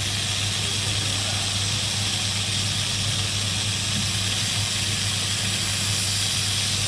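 RF-tube CO2 laser cutter running while it cuts a phone screen protector film: a steady low hum with an even hiss.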